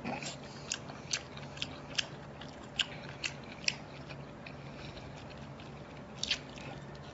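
Close-miked chewing and biting of skewered seafood, with sharp wet mouth clicks and smacks at irregular intervals.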